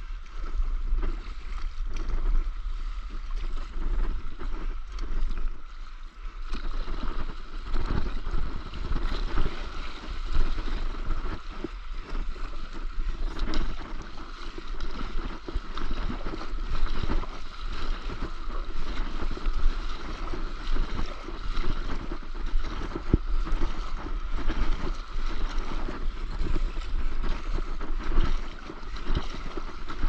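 Sea water splashing and sloshing around a stand-up paddleboard as it is paddled, with wind buffeting the microphone in an uneven rush.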